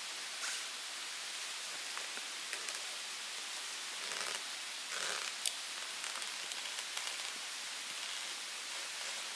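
Steady rushing hiss of a mountain stream, with a few light rustles and taps as a wooden branch is wedged up under a tarp as a pole.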